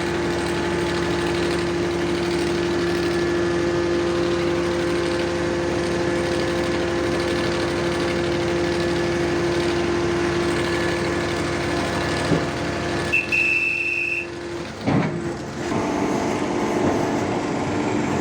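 Hydraulic static pile driver's engine and hydraulic pump running with a steady hum. A short high beep sounds about three-quarters of the way through, then a knock, and the machine's note changes.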